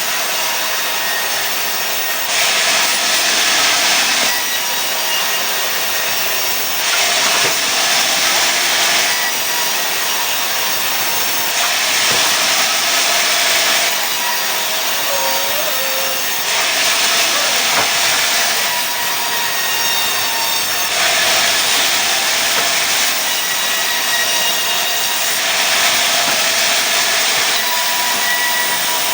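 Sawmill saw cutting pine into boards. It runs steadily, and a louder stretch of about two seconds comes back roughly every four to five seconds.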